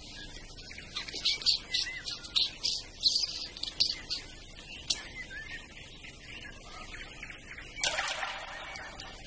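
Cartoon sound effects: a quick run of short, high squeaks and chirps, then, about eight seconds in, a single splash into water.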